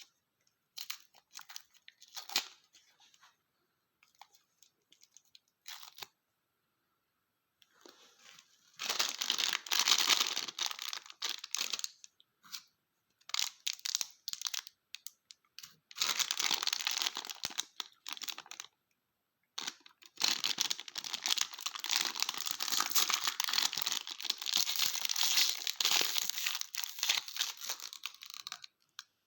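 Plastic lollipop wrappers being crinkled and torn open. A few short crackles come in the first few seconds, then three long stretches of dense crinkling.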